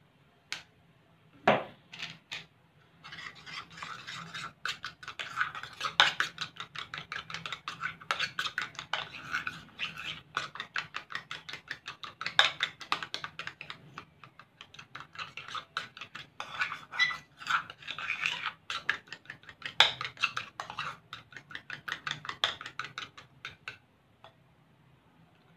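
A metal spoon stirring glue and green colouring in a ceramic bowl, scraping and clicking rapidly against the bowl, with a short pause about halfway. A few separate clicks come first.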